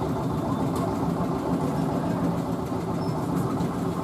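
A motor running steadily: an even, low drone that holds several steady tones.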